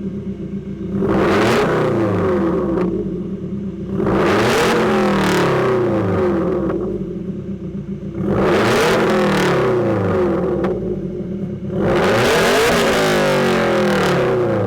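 2015 Subaru WRX's turbocharged 2.0 L flat-four (FA20DIT) with a Tomei unequal-length header, revved four times from idle, each rev held a couple of seconds before dropping back, through an aftermarket catless exhaust.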